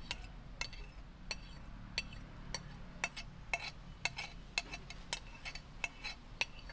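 A metal utensil clinking against a cooking pot as it stirs a pot of mung beans in boiling coconut milk. The sharp clinks come irregularly, about two a second, over a steady low hum.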